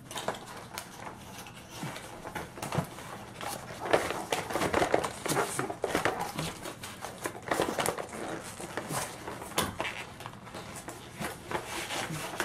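Cardboard packaging handled by hand: a small box sliding out of the end of a long cardboard box and the box's end flaps being opened, with irregular scrapes and rustles.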